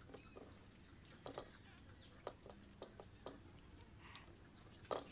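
Faint eating sounds: a few scattered short clicks and ticks of fingers picking rice off a plate and of chewing, the loudest near the end.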